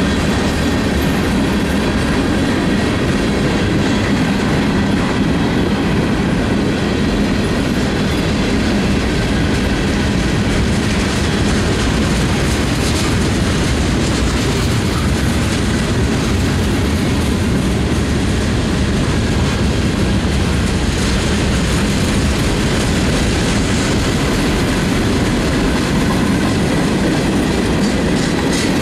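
Freight train cars rolling steadily past on the rails: a long mixed string of covered hoppers, boxcars and tank cars.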